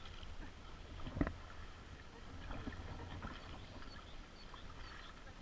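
Kayak paddling on calm water: soft paddle strokes and drips at a low level, with one sharper knock about a second in.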